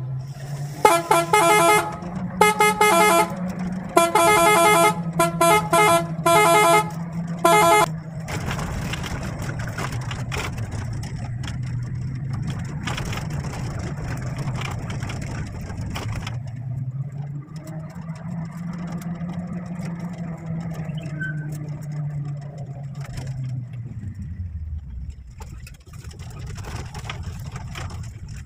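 A vehicle horn honks in a quick run of about a dozen short blasts through the first eight seconds, heard from inside the cabin over the engine. After that the engine and road noise carry on, with the engine note rising and then falling again as the vehicle changes speed.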